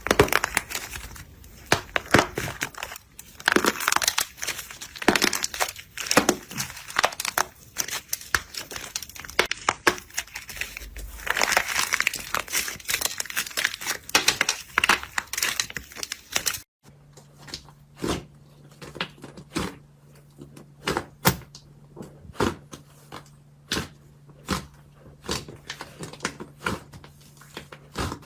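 Slime being squeezed and kneaded close to the microphone, with dense crackling and crinkling. After a cut about two-thirds of the way in, separate sticky pops come about once a second over a low steady hum.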